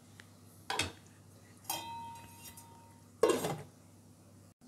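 Metal cookware clinking: a light knock, then a ringing metallic clink that hangs for about a second, then a louder clank as an aluminium lid is set down on the cooking pot.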